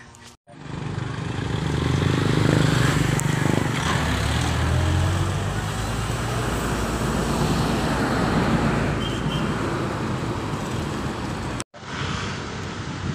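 Road traffic noise: a motor vehicle engine running close by, loudest in the first half, over a steady street hum. The sound cuts out briefly near the start and again near the end.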